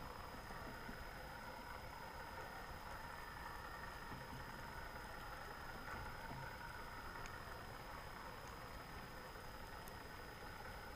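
Steady, muffled underwater noise picked up by a camera in a waterproof housing, with a thin steady high tone and a few faint clicks.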